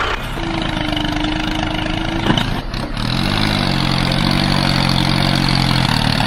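Tractor engine running steadily with a dense, chugging hum. A low drone of several steady tones joins about three seconds in.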